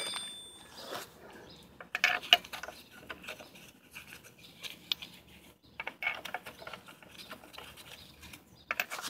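Scattered light metallic clicks and clatter, in small clusters, of lug bolts and hand tools being handled while a car's front wheel is refitted.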